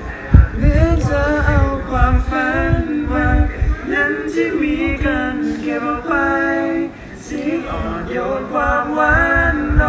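Male voice singing without accompaniment, in long held notes, with low thumps underneath.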